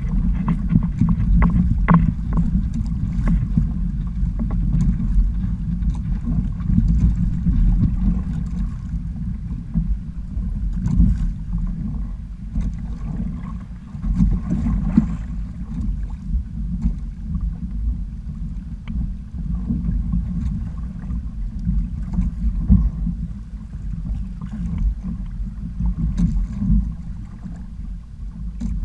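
Wind buffeting the microphone in a steady, uneven low rumble, with water splashing and lapping against the hull of a Hobie sailing kayak under sail.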